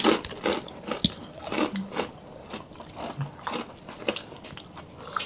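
People eating barbecued beef ribs and rice by hand: close, irregular biting, chewing and lip-smacking, with small clicks and a couple of brief low hums.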